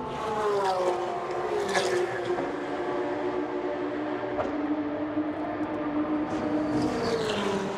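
Racing car engine heard across the circuit, its note falling over the first couple of seconds, then holding steady and dipping again near the end.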